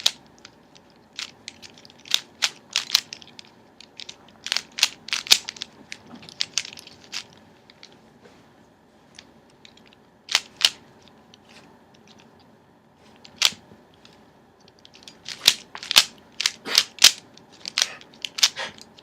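Plastic speed Rubik's cube being turned by hand: quick runs of sharp clacks as the loose layers snap round, broken by pauses of a second or more between runs.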